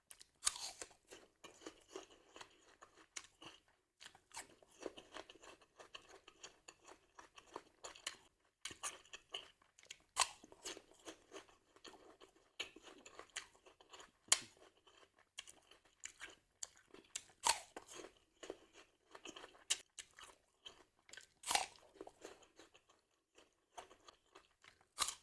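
A person chewing and crunching crisp apple close to the microphone, with sharp crunches of fresh bites at irregular intervals amid steady wet chewing.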